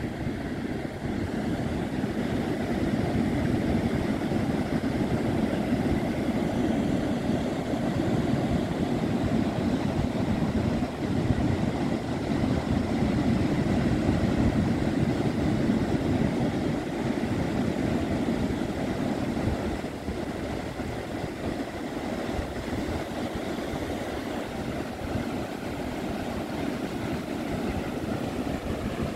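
Ocean surf washing onto a sandy beach: a steady, low rushing noise that eases a little after about twenty seconds.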